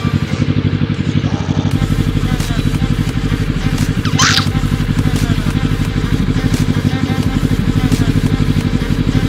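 Kawasaki ER-6n's parallel-twin engine running steadily at low revs, with no rise or fall in pitch. A brief high screech cuts across it about four seconds in.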